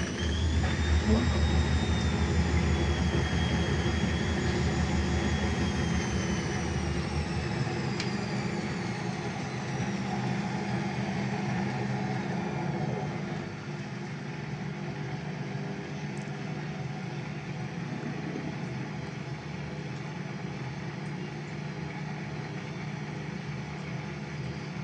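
Indesit washing machine on its final spin at high speed. The drum gives a loud low rumble, typical of worn drum bearings and an unbalanced load, under a high motor whine that holds and then slowly falls. The rumble eases about halfway through.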